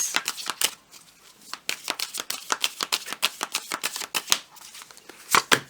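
A deck of tarot cards shuffled by hand: a quick run of dry clicks and flicks, easing off briefly about a second in and again before a few louder flicks near the end.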